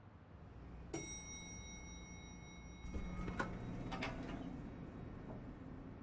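Lift arrival chime: one ding about a second in that rings on for over a second. Then the lift doors slide open with a few clicks and a rattle, over the low hum of the lift lobby.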